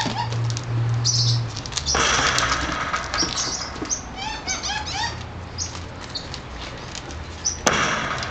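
Young Portuguese Podengo puppies playing in a plastic sandbox lid: paws scrabbling and the plastic lid scraping and rocking on concrete, loudest about two seconds in and again near the end, with a quick run of short high squeaks about halfway through.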